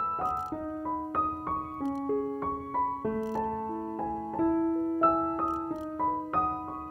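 Background piano music: a gentle melody of struck notes over held chords.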